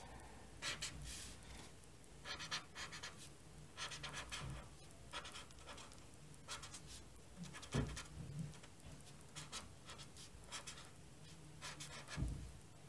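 Faint, intermittent scratching and rustling from cross-stitch handwork at a table, strokes coming every second or so, with a couple of soft knocks about eight and twelve seconds in.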